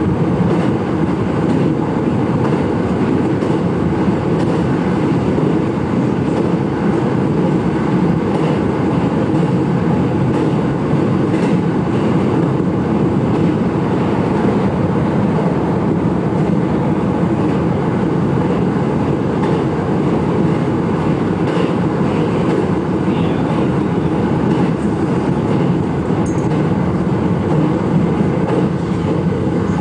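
Electric commuter train running along the line, a steady rumble heard from the front of the train, with occasional faint clicks from the rails.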